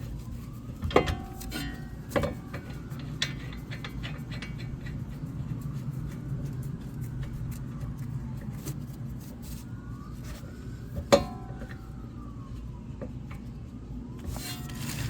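Metal tools and brake parts clanking during a brake caliper install: a sharp ringing clank about a second in, another about two seconds in, and the loudest near the middle. A faint wail rising and falling runs under a low steady hum.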